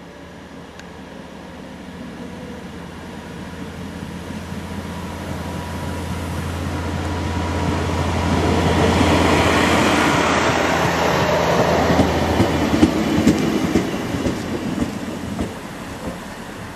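DB class 640 LINT 27 single-car diesel railcar pulling into the station. Its engine drone and running noise grow steadily louder as it approaches and peak as it passes, about nine to twelve seconds in. A quick run of clicks from the wheels over the rails follows, and then the sound fades as it rolls away.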